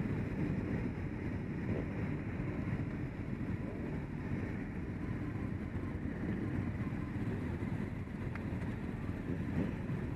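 Motorcycle engines idling together, a steady low rumble.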